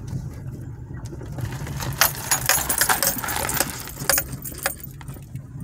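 Car running with a steady low hum in the cabin. About two seconds in, a quick string of clicks and rattles of handling noise as the phone is moved around, with a few more clicks shortly after.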